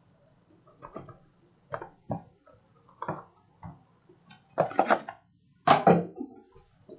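A cardboard trading-card box being handled and opened: irregular knocks, scrapes and clatters of the lid and box on the table, with the loudest clusters about four and a half and six seconds in.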